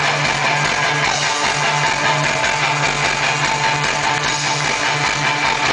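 Punk rock band playing live: electric guitar, bass guitar and drums, loud and steady, with the bass pulsing in short even notes.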